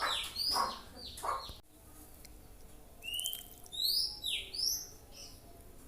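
Songbird calls: two harsher falling calls in the first second and a half, then an abrupt drop in level and, about three seconds in, a quick run of short high whistled notes, each sliding up or down.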